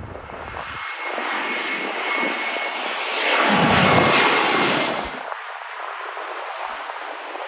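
Twin-engine jet airliner passing low overhead on final approach. Its engine noise builds to a loud peak about halfway, with a steady high whine over the roar. A little after five seconds it breaks off abruptly to the fainter sound of a more distant jet.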